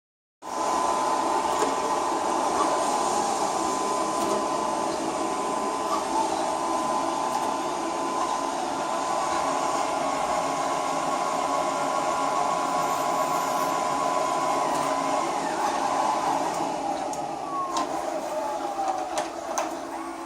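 Polaris PVCR 0920WV robot vacuum cleaner running, a steady motor hum with a whine. Near the end the pitch slides down and a few clicks are heard.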